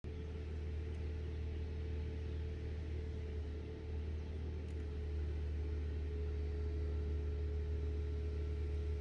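A machine running with a steady low hum and a fainter steady higher tone.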